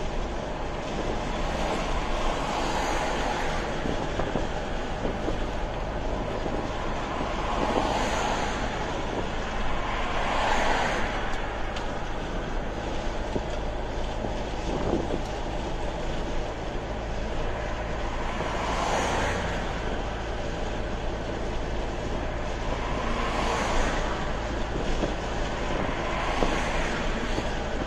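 Steady road and tyre noise with engine hum, heard inside a car's cabin at highway speed, swelling briefly about six times.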